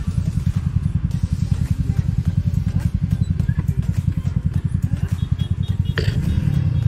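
Small single-cylinder motor scooter engine idling with a rapid, even low putter. A sharp click comes about six seconds in.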